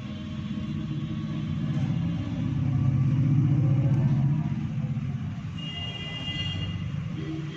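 Low engine rumble that swells to its loudest about three seconds in and then fades, like a motor vehicle passing. A brief higher-pitched tone sounds about six seconds in.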